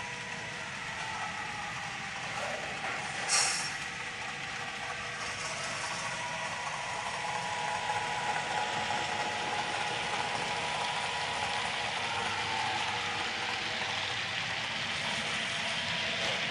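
HO-scale model freight train rolling by behind a GP9 locomotive, its wheels clicking and rattling on the track while the Tsunami 2 sound decoder plays diesel engine sound. A short sharp sound comes about three seconds in, and the train grows louder from about eight seconds as the locomotive passes.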